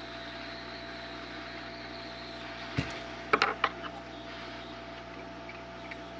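A metal tool clicking and tapping against a CPU's heat spreader as it is pried off the chip: a single click a little before halfway, then three or four quick sharp clicks, over a steady background hum.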